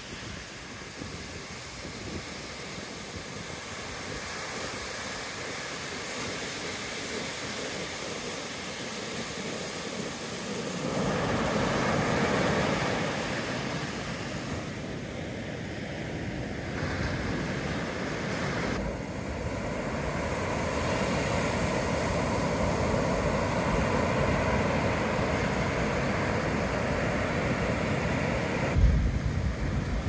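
Ocean surf breaking and washing up a sandy beach: a steady rush of foaming water that swells louder as a wave breaks about a third of the way in and again through the last third. Wind buffets the microphone.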